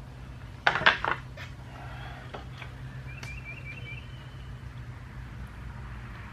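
Metal tools and lawnmower parts handled during carburetor removal: a brief loud metallic clatter about a second in, then a few light clicks and a quick run of faint high ticks, over a steady low hum.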